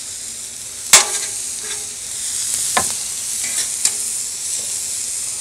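T-bone steaks topped with butter sizzling steadily on a Blackstone 36-inch flat-top griddle. A sharp clack of the metal spatula against the steel griddle top comes about a second in, the loudest sound, with lighter clinks near the three-second mark.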